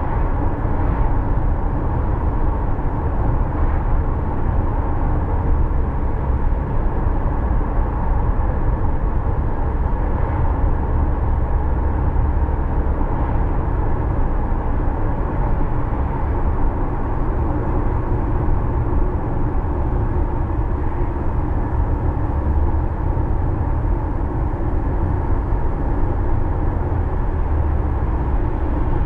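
Steady road noise of a car being driven: a continuous low rumble of engine and tyres on the road, with no clear changes.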